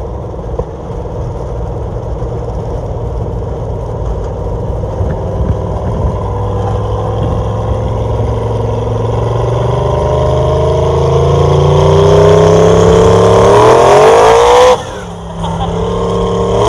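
A 6.0-litre LS V8 pickup accelerating hard, heard from inside the cab: the engine note climbs steadily for several seconds, drops off abruptly about fifteen seconds in, then climbs again near the end.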